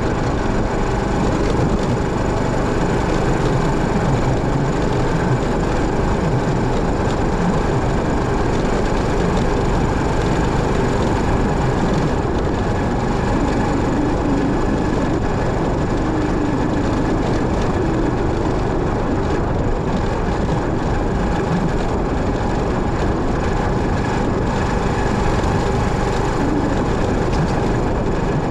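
Motorcycle running steadily on the move, its engine note carried over continuous road and wind noise.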